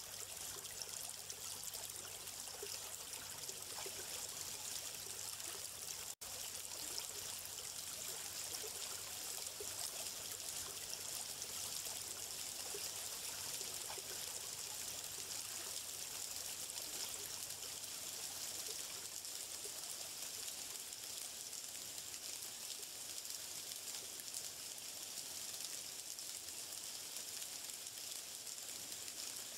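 Stream water running and trickling in a steady, even hiss, cutting out for an instant about six seconds in.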